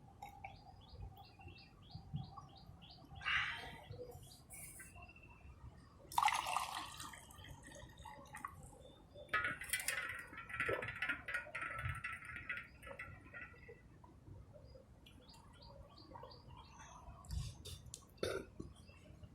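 A person drinking warm salted lemon water in quick gulps from a vessel, with a few short bursts of liquid sound. The water is being taken fast so that it can be vomited back up in kunjal kriya. Birds chirp in quick runs near the start and again about three-quarters of the way through.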